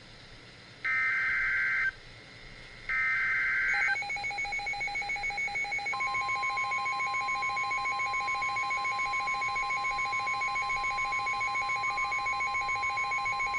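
Emergency Alert System SAME header on NOAA Weather Radio: two one-second bursts of screeching two-pitch data tone, about a second apart. Then the steady 1050 Hz warning alarm tone comes in, over a rapidly pulsing electronic alert beep; together they announce a warning, here a Special Marine Warning.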